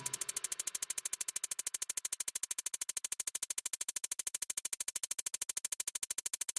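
A rapid, even ticking pulse, about a dozen sharp clicks a second, in a break of the electronic background music.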